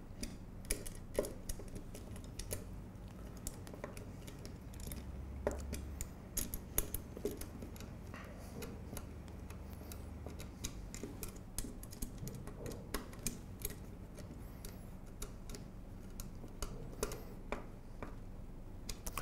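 Hand hex driver tightening screws into metal brackets on an aluminium extrusion rail: scattered light metallic clicks and ticks as the tool turns and the parts shift.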